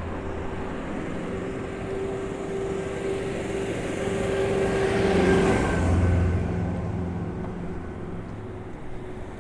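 A motor vehicle passes close by. Its engine and tyre noise build to the loudest point about five or six seconds in, then fade away.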